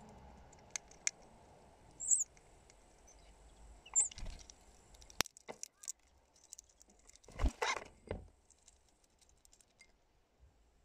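Hawfinch at a feeder: two short, very high calls in the first half, scattered small clicks and taps, and a brief louder rustling scuffle about three-quarters of the way through.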